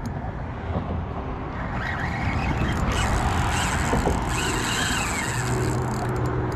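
Road traffic passing, a steady low rumble that grows louder about two seconds in, with a low engine hum setting in about five seconds in.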